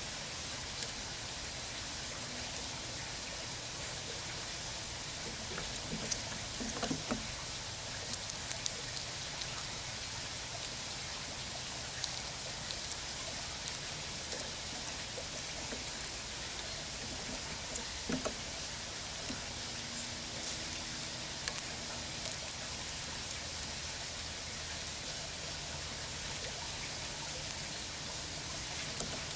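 Gray squirrel cracking open and chewing sunflower seeds: scattered sharp clicks over a steady hiss.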